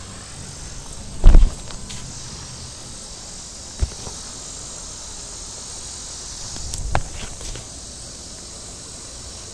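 Steady high insect buzz from the trees, broken by handling noise on the phone: a loud bump about a second in, a sharp knock near four seconds, and a few smaller knocks around seven seconds.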